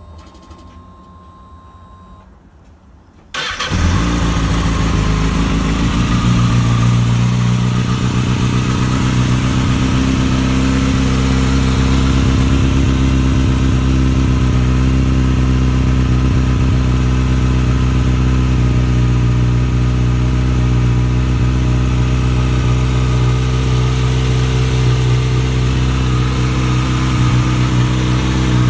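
Kawasaki Ninja ZX-6R 636's inline-four with a Scorpion Red Power exhaust being started. A faint steady whine comes first, then the engine catches about three seconds in and settles into a steady idle.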